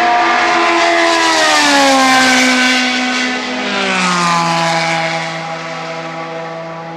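Group C sports-prototype race car driving past and away, its engine note dropping in pitch twice, then holding steady and fading.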